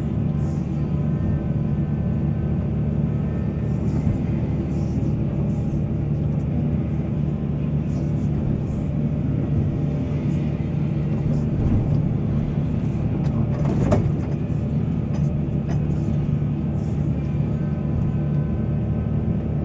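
Heavy diesel engine of a mining excavator running steadily, with a single sharp knock about fourteen seconds in.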